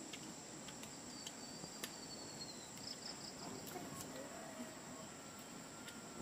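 Steady high-pitched insect chirring, with a few faint clicks over a faint background hiss.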